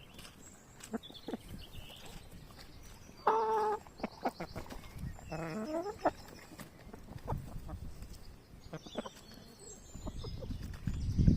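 Domestic hens clucking, with two louder calls about three and five and a half seconds in, the second falling in pitch, among scattered short taps. A low thump comes near the end.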